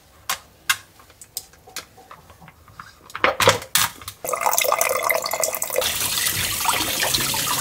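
Light clicks and knocks of plastic parts as a small pump is fitted into a pet water fountain's plastic bowl. About four seconds in, a kitchen tap starts running steadily, water splashing over the fountain's activated-carbon filter cartridge to soak it before first use.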